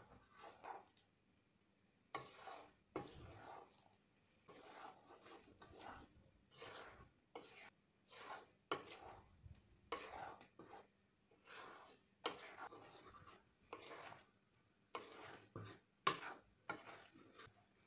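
Wooden spatula stirring and scraping jujubes in thick jaggery syrup around a kadai, in repeated strokes about one a second. The stirring is kept constant so the pickle doesn't stick to the pan as it cooks down.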